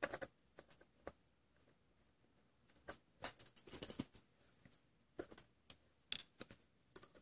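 Faint, irregular small clicks and taps of a verge fusee pocket-watch movement and its tiny brass parts being handled, with a quick run of clicks about three to four seconds in.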